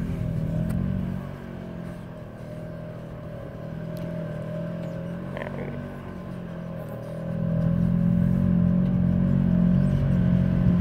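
Side-by-side UTV engine running under load as it crawls up a steep slickrock climb, with a steady whine over the engine hum; it grows louder about seven seconds in.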